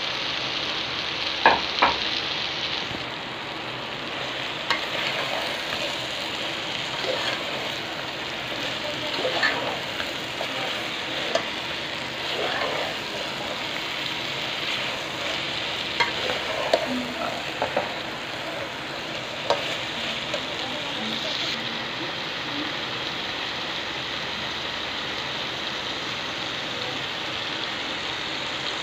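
Chopped okra frying in a metal pot with a steady sizzle, stirred with a metal slotted spoon that clinks and scrapes against the pot now and then, less often near the end.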